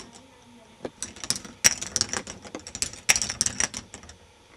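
Balls in a K'nex ball machine clattering along plastic tracks and through its parts: rapid runs of sharp plastic clicks, bunched around a second in and again about three seconds in, with a few single clicks between.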